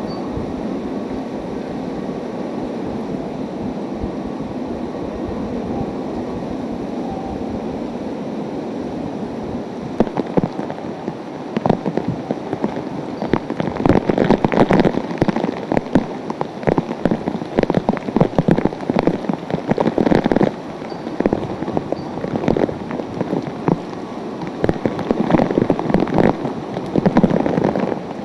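Hurricane-force wind and driving rain: a steady rushing noise, then from about ten seconds in, louder uneven gusts with rapid crackling hits on the microphone.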